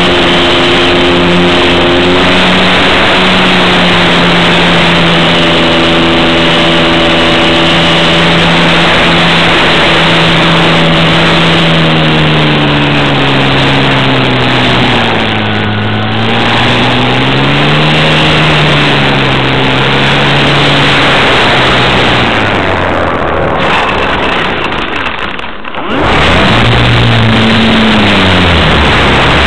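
Model airplane motor and propeller heard from on board: a steady buzzing note that slides up and down in pitch with the throttle, dipping and swelling around the middle. Near the end it fades away for a few seconds, then comes back louder and rougher as the plane skims low over the grass.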